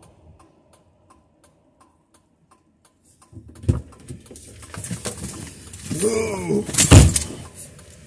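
Faint, even ticking about three times a second over near quiet. From about three seconds in, louder roadside noise follows, with a thump just before four seconds in and a loud knock about seven seconds in.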